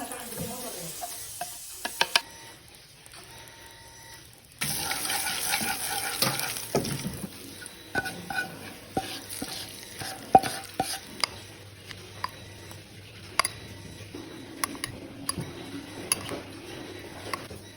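Food sizzling in hot oil in a pan while a utensil stirs it, with repeated clinks and scrapes against the pan. The sizzle starts suddenly about five seconds in.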